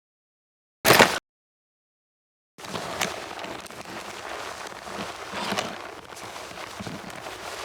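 Clone trooper armoured footsteps sound effect: one short, sharp step about a second in. Then, after a pause, a longer stretch of steps over a continuous gritty scuffing with irregular louder footfalls.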